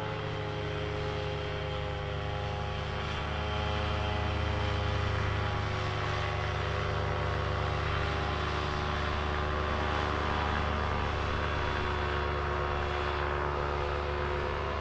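Paramotor (powered paraglider) engine and propeller running steadily in flight, a steady engine drone that gets a little louder about four seconds in.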